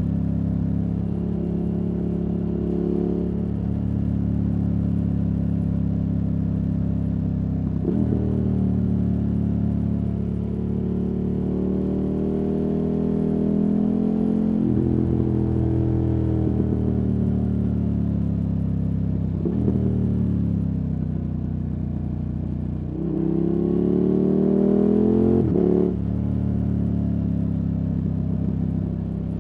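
KTM 1290 Super Adventure S V-twin running through a Wings aftermarket exhaust, heard from the rider's seat under way. The revs climb and then drop abruptly about four times, loudest during a hard pull near the end.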